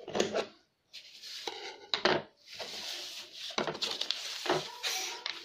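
Scissors snipping through two layers of pattern paper in several short cuts, then the stiff paper rustling as it is lifted and shifted by hand.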